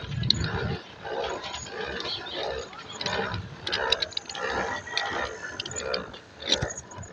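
Pedal-driven water bike being pedalled, making a rhythmic churning and creaking about twice a second, with light clicks from the pedal drive.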